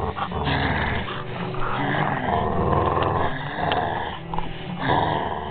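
Pit bull growling almost without a break while biting at a hand in rough play.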